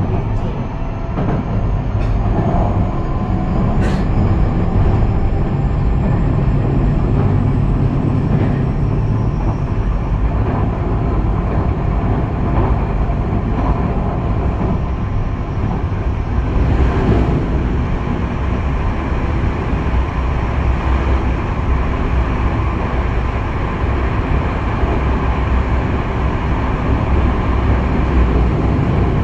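Kobe Municipal Subway 6000 series train running, heard from inside the car: a rising motor whine in the first few seconds as it gathers speed, then steady running noise of wheels on rail with a deep rumble and a few knocks.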